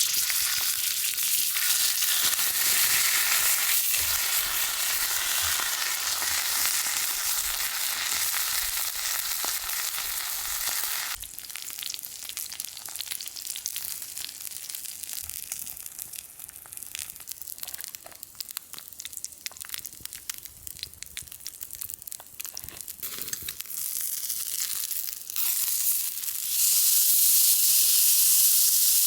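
Thick wagyu steak sizzling and spitting on an iron griddle over an open fire: a steady hiss full of small crackles. It turns quieter about eleven seconds in and loud again near the end.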